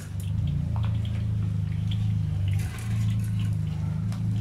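Banana fritters deep-frying in a wok of hot oil, with scattered crackles and pops over a steady low hum.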